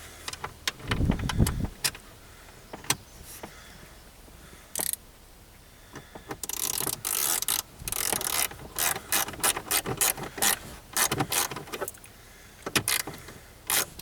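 Scattered clicks and knocks of parts being handled, then spurts of fast ratchet clicking from about six to eleven seconds in: a ratchet tightening a fastener.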